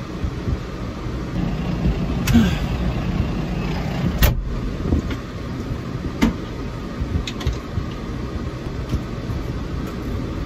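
Tractor engine running steadily, heard from inside the cab. A few sharp clicks and knocks come over it, the loudest about four seconds in.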